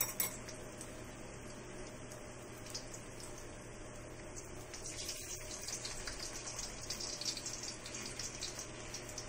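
Battered kangkong (water spinach) leaves frying in a little hot oil in a wok: a steady sizzle with fine crackling, which grows denser and a little louder about five seconds in as more battered leaves go into the oil.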